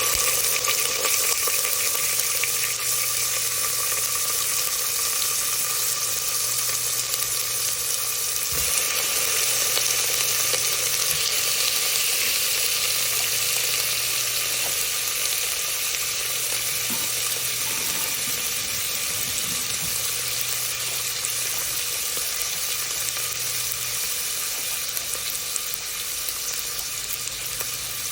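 Kitchen tap water running steadily into a sink, with a low steady hum beneath it that stops near the end.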